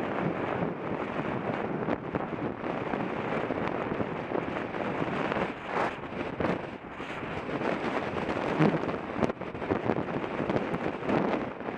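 Wind rushing over the microphone of a camera on a moving bicycle, with road traffic passing alongside.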